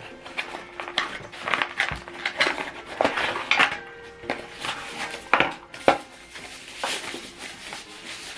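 Irregular clicks and clatter of a small plastic mini keyboard and its packaging being handled, with faint background music.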